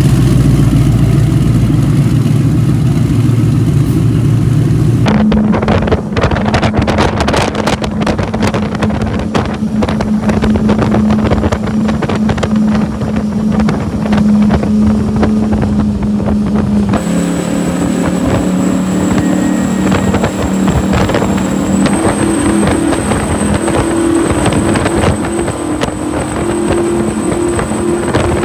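Twin turbocharged Mercury Racing 1350 engines of a Cigarette 515 powerboat: a low rumble at slow speed, then, after a cut about five seconds in, a steady drone at high speed over rushing wind and water. The sound changes abruptly again about seventeen seconds in, where the drone shifts pitch and a thin high whine joins it.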